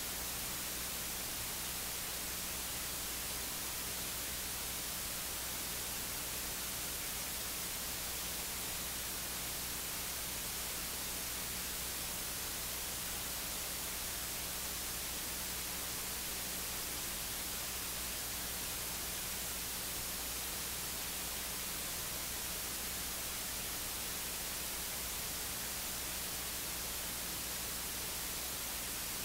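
Steady electronic hiss with a low, constant hum underneath; no voice comes through.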